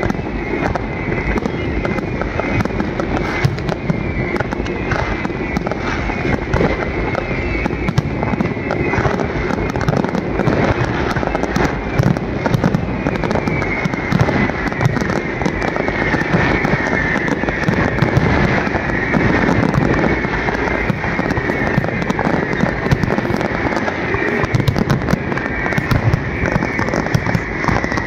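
Fireworks display going off in a dense, continuous barrage: many bangs and crackling bursts overlapping without a break.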